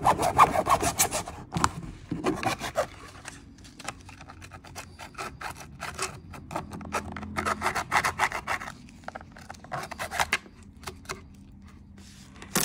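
A bare hacksaw blade sawing through the moulded plastic duct vanes of a motorcycle lower fairing, in quick, uneven back-and-forth strokes.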